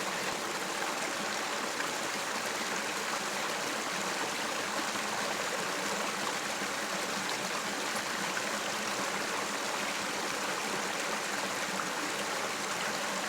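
River water flowing steadily, an even rushing noise.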